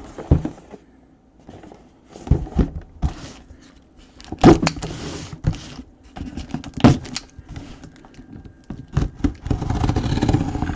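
Cardboard box and packaging being handled and opened by hand: irregular knocks, scrapes and rustling, busiest near the end.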